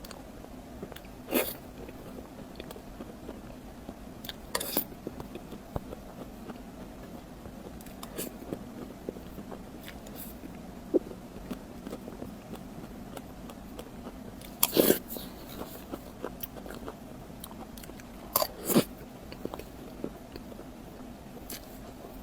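A person eating close to the microphone: about six sharp, crunchy bites spread apart, the loudest about 15 s in and a quick pair near 18 s, with quieter chewing between, over a steady low hum.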